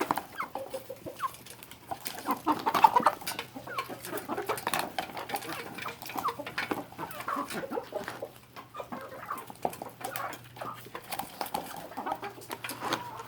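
A flock of backyard chickens clucking busily at feeding time, many short calls overlapping and running on through the whole stretch.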